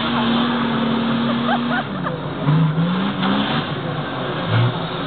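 Off-road SUV's engine revving hard under load as it tries to climb out of a mud pit, its wheels churning and throwing mud. The engine holds one high note for about two seconds, then drops and climbs again as the throttle is worked.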